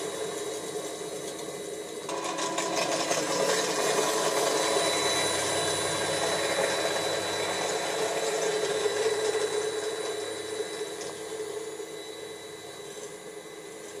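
Model garden-railway rotary snowplow working through deep snow with small electric motors whirring steadily. The sound grows louder about two seconds in, then fades over the last few seconds.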